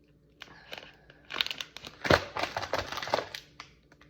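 Snack packaging crinkling and rustling as it is handled, in irregular bursts, loudest about halfway through.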